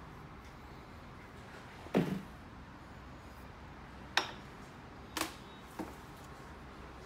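Steel pellet-mould plates handled and set down on a steel bench: four separate metal knocks, a heavier one about two seconds in, then three sharper clicks about four, five and six seconds in.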